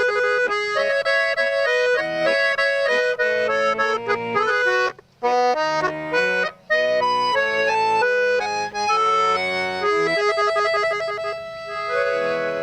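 Accordion playing a melody over held bass notes, with two brief breaks in the sound near the middle.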